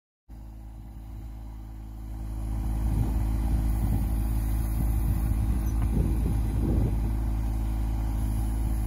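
Engine of a compact tractor with a backhoe attachment running steadily while it digs, getting louder about two seconds in.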